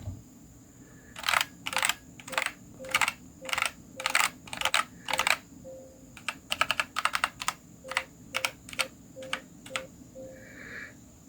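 Marvo CM373 mechanical keyboard with red switches being typed on. First come separate keystrokes about two a second, then from about six seconds in quicker runs of keys.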